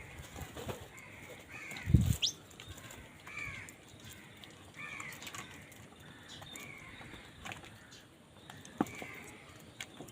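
Crows cawing, short harsh calls repeated every second or two. There is a loud low thump about two seconds in and a few sharp knocks.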